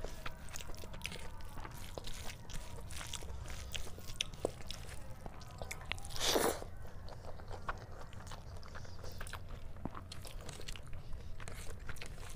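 Close-miked eating sounds of curry rice eaten by hand: wet chewing with many sharp mouth clicks, and one short, loud rush of mouth noise about six seconds in as a big handful of curry-soaked rice goes into the mouth.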